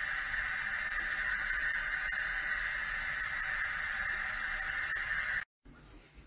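Steady hiss that cuts off abruptly about five and a half seconds in.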